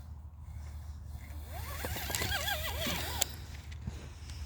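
Fireworks: a wavering whistle for a second or two, with a few cracks and one sharp bang about three seconds in.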